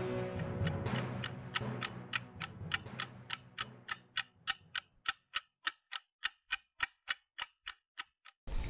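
Clock ticking sound effect: a steady run of sharp ticks, a little over three a second, coming in as the low tail of a music sting fades out and stopping shortly before the end.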